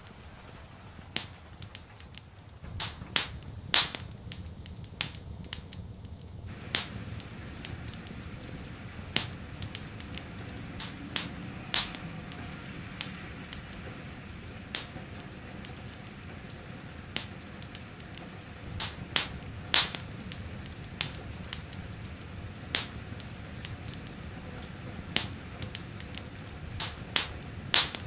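Wood fire burning in a fireplace, crackling with irregular sharp pops, some loud, over a low steady rumble and the soft hiss of rain.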